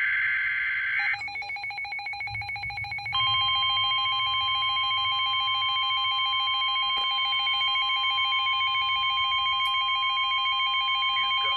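Emergency Alert System tones on NOAA Weather Radio: the end of a screeching SAME data burst, then a warbling electronic alarm that begins about a second in. The steady 1050 Hz weather radio warning tone joins it about three seconds in, sounding the alert for a severe thunderstorm warning.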